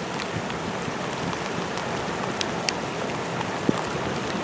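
Steady rushing of fast-flowing river water around a wading angler, with a few faint clicks.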